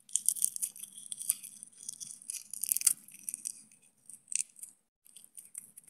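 Dried red chili pods crumbled between the fingers into flakes: an irregular dry crackling of many small clicks, thinning out over the last second or so.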